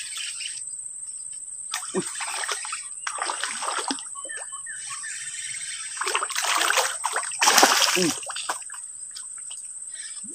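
A hooked snakehead thrashing and splashing at the water's surface as it is fought on a light spinning rod, its pull described as very strong. The splashing comes in several rough bursts, about two, four, six and eight seconds in, the loudest near eight seconds.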